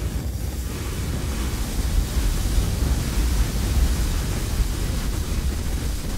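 Granular-synthesis output from the Granulizer plugin playing a loaded sample: a dense, steady, noise-like wash with a heavy low rumble, as the grain size is turned down to very short grains.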